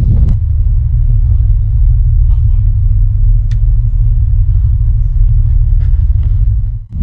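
Ferry's engines droning, a loud, steady low rumble heard inside the bunk cabin, with a faint click about three and a half seconds in.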